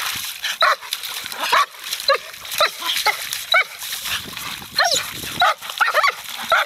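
A small dog yipping and barking in short, high-pitched calls, about two a second.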